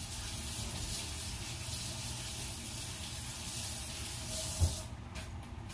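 Pork ribs frying in hot oil: a steady sizzle that drops away suddenly near the end, with one short knock just before it stops.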